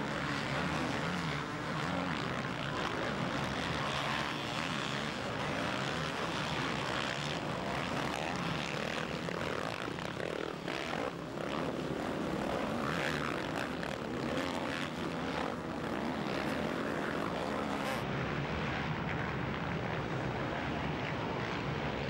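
Several motocross bikes' engines running hard at once as they race over the dirt track, blending into a steady, mixed engine drone.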